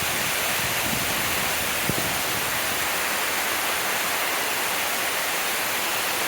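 Steady monsoon rain falling, a constant even hiss, with a single sharp tap about two seconds in.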